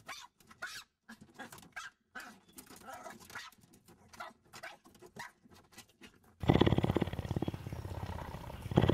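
Small terrier-type dog giving short, scattered yaps as it lunges at car-wash spray on the windscreen. About six and a half seconds in, a cougar purrs loudly and rapidly close to the microphone.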